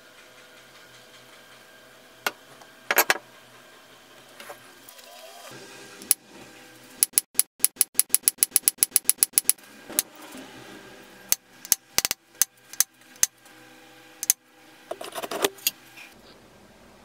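Hammer striking steel letter punches into the aluminium butt of a cast hatchet handle, stamping a maker's mark. Sharp metallic strikes, a few on their own, then a quick even run of about six a second in the middle, then more scattered strikes and a short cluster near the end.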